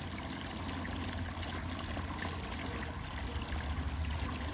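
Water running from a garden hose into a part-filled plastic water tub, splashing and bubbling steadily into the standing water.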